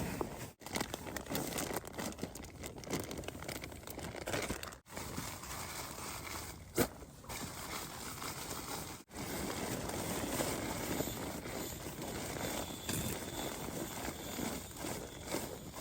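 Rustling and crinkling of camping gear being handled and packed, with many small crackles. The sound drops out abruptly three times, as if between separate short clips.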